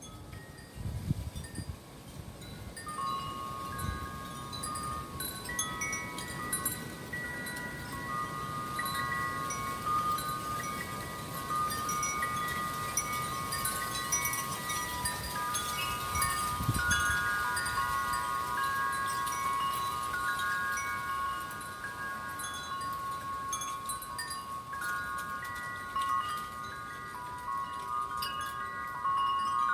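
Wind chimes ringing steadily in the wind, many overlapping tones sounding together, starting about three seconds in, with low wind rumble on the microphone underneath.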